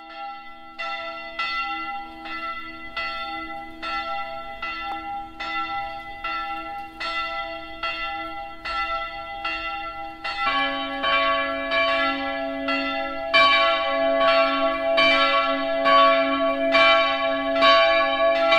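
Church tower bells ringing with a steady stroke about every 0.7 seconds. More bells join about ten seconds in and again a few seconds later, and the peal grows fuller and louder.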